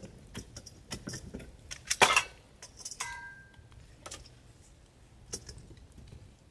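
Metal tongs clinking and knocking against a fire brazier and metal cookware, with the loudest knock about two seconds in and a short metallic ring just after three seconds.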